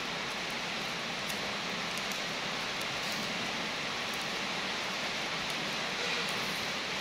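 A steady, even hiss, with a few faint light crinkles as the plastic wrapper is picked off a lollipop.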